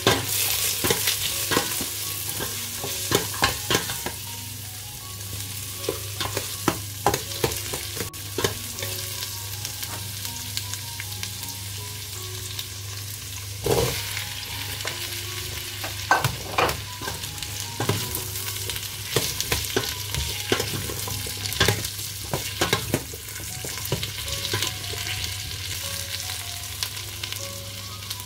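Onion, potatoes and carrots sizzling as they are sautéed in a stainless steel pot, stirred with a metal spoon that clicks and scrapes against the pot many times. A steady low hum runs underneath.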